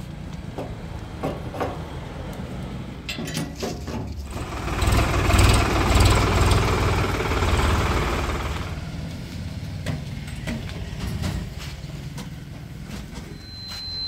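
Diesel engine idling with a steady low rumble. About four seconds in it grows louder for roughly four seconds, then settles back to idle. A few sharp clicks and knocks come just before the louder stretch.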